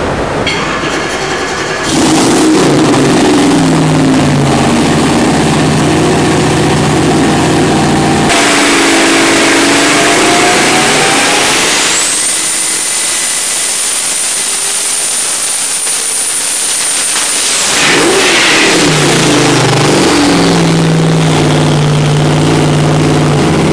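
Twin-turbocharged 632 cubic inch big-block Chevy V8 running on a test stand, taken through a full-throttle pull. A high turbo whistle rises about halfway through and holds for about six seconds, then the engine drops back to a steady low running note. The headers glow red from the load.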